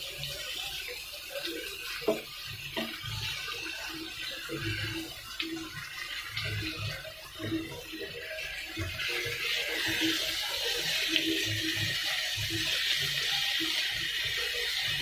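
Prawns frying in oil in a pan, a steady sizzle that grows louder about two-thirds of the way through. A wooden spatula scrapes and knocks against the pan now and then as the prawns are turned.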